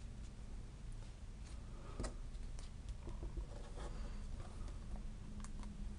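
Faint handling sounds of paper card being slid and set in place on a stamping platform, with a few light scattered taps and clicks.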